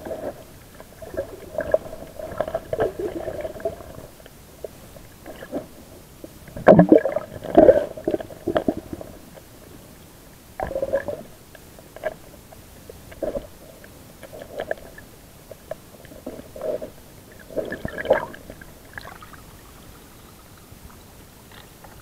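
Muffled underwater gurgling and bubbling picked up by a submerged camera, coming in irregular spells, with the loudest gurgles about seven and eight seconds in.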